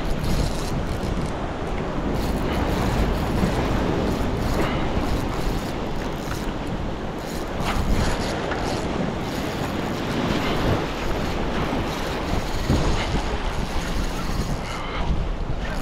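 Surf washing and breaking against the rocks of a jetty, with wind buffeting the microphone.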